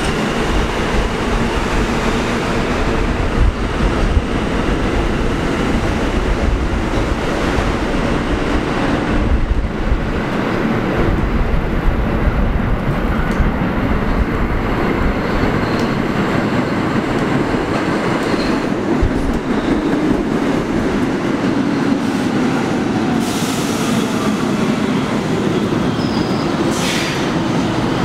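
Pullman Standard R46 subway train pulling into an underground station, a steady loud rumble of wheels on rail as it approaches and runs alongside the platform. There are a couple of brief high squeals near the end.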